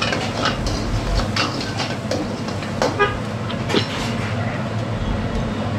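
Steel ladle stirring and scraping chopped onions and green chillies frying in oil in a large iron kadai, with repeated short scrapes and knocks over a steady low hum and frying sizzle.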